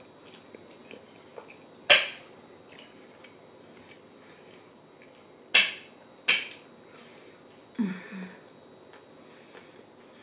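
Metal fork clinking sharply against a ceramic plate three times, with faint mouth and chewing sounds between and a brief hummed "mm" near the end.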